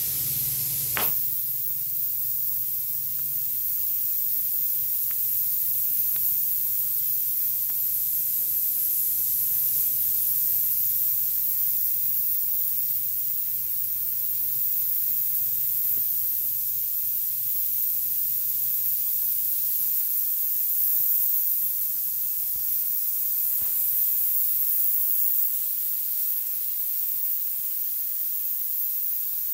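FogClean Pro fogger spraying disinfectant fog from its hand-held wand: a steady, high-pitched hiss with a faint low hum underneath. There is a single click about a second in.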